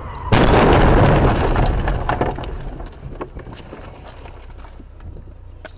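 Car crash heard from inside the dashcam car: a sudden loud impact about a third of a second in, followed by about two seconds of crunching and scattered cracks that fade away.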